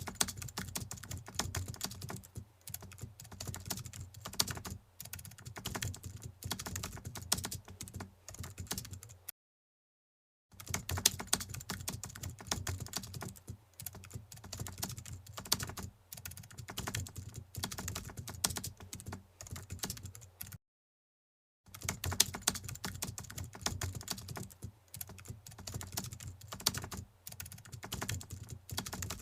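Computer keyboard typing, fast irregular key clicks that run on continuously and cut out completely twice for about a second each, like a looped sound effect.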